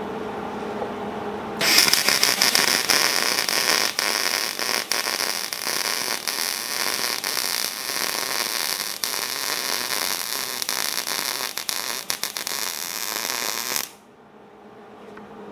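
Wire-feed welder arc crackling and hissing for about twelve seconds as a bead is laid to fill a gap under a gate post. It starts about a second and a half in and cuts off sharply near the end. The wire is stuck out long to reach in, which the welder says left a little porosity in the weld.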